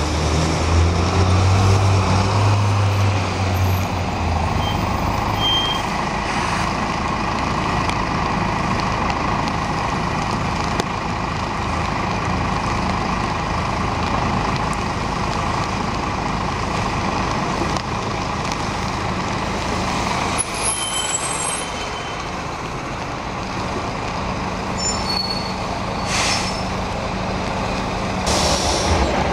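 Diesel buses and a lorry driving past in city traffic, engines running. A deep engine hum is loudest in the first few seconds, and there are two short hissing sounds near the end.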